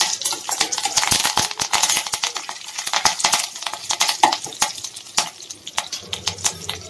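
Mustard seeds crackling and popping in hot oil with cumin, dried red chillies and curry leaves sizzling, as a spoon stirs them in a small stainless steel pan: a South Indian tempering.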